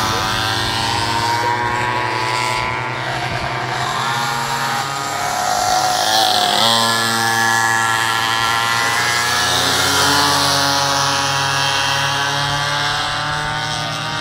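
Small two-stroke minimoto (pocket bike) engines buzzing as several bikes race round the track. Their pitch slides up and down as the riders open and close the throttle through the corners.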